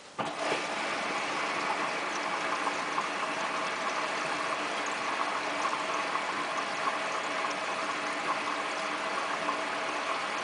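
Hotpoint Ultima WT960 washing machine starting to fill: the inlet valve opens suddenly, then water rushes steadily into the machine through the detergent drawer at the start of the wool cycle.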